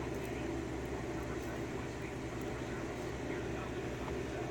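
Steady low mechanical hum, like a fan or air-handling unit, with a few faint light ticks over it.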